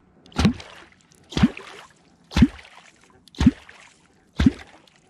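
Catfish clonk struck into the water five times, about once a second, each stroke a low plop with a splash. This is clonking, the call used to draw wels catfish up toward the bait.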